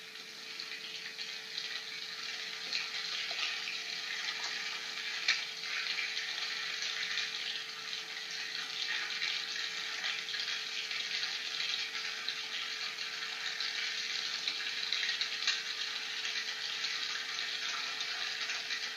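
Steady hiss with light crackle and a faint steady hum underneath, cutting off abruptly near the end.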